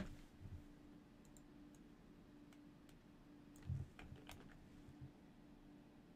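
Faint, sparse keystrokes and clicks on a computer keyboard and mouse, about half a dozen, the clearest about four seconds in. A faint steady hum lies beneath.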